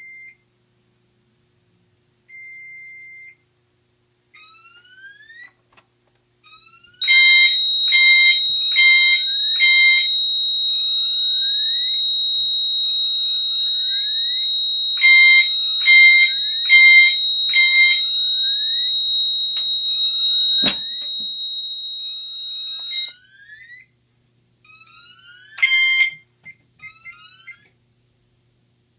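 Pyrotronics MTL MultiTone horn working as a single-stroke chime, sounding the Siemens SXL-EX panel's simple zone code: two rounds of four evenly spaced strokes, about one a second, the code for zone 4, then a single stroke near the end. The panel's piezo sounds a steady high tone under the first rounds and stops about two-thirds of the way through. Short beeps come at the start, and fainter short rising sweeps repeat throughout.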